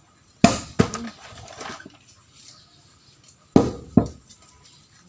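Firewood being chopped: four sharp blows in two quick pairs, the second pair about three seconds after the first.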